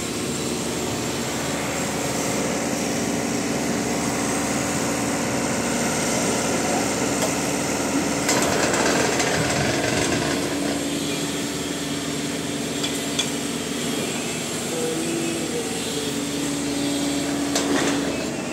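Truck-mounted concrete pump running steadily, engine and hydraulics under load as its boom swings, with a held tone. It grows louder about halfway through, with a few clanks and knocks.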